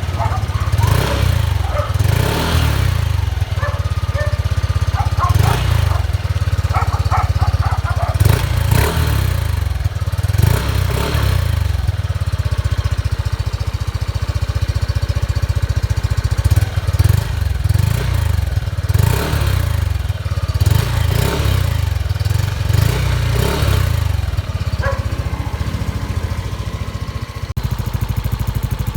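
Motorcycle engine with an aftermarket WF power pipe exhaust running, giving a steady low exhaust note with repeated short surges every second or two.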